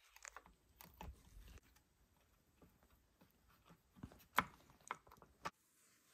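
Faint scattered clicks and taps of small metal and plastic RC parts and hand tools being handled, the sharpest about four seconds in.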